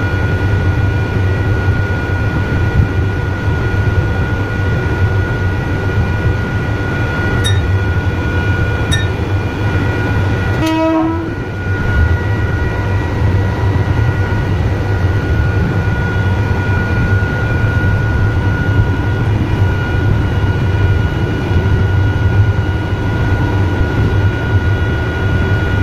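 Electric multiple-unit train running, heard from the motorman's cab: a steady low rumble with a constant high whine. Two short beeps come about seven and nine seconds in, and a brief pitched sound about eleven seconds in.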